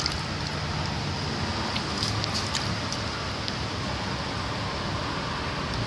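Steady rain falling, an even hiss, with a few faint taps between about two and three and a half seconds in.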